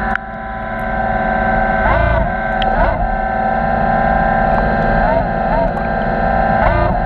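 Electric motors of an underwater robot whining steadily over a low electrical hum. Every second or two their pitch bends briefly up and back down as the thrusters are driven.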